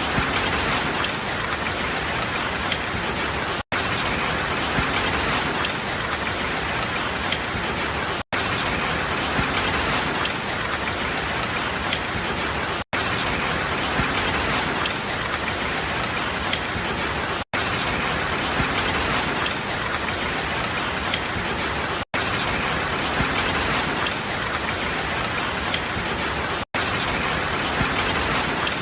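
Steady rain falling, a dense even hiss with scattered drop ticks. The sound cuts out for an instant about every four and a half seconds, as a short looped recording does.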